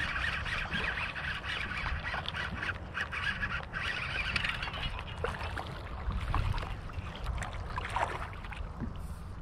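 Baitcasting reel cranked steadily as a hooked bass is fought to the boat, ending in the fish splashing at the surface near the end, with wind rumbling on the microphone.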